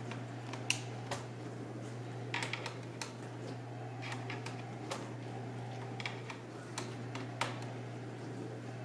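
Light, irregular metal clicks and ticks of a small screwdriver turning screws out of a laptop's screen bracket, over a steady low hum.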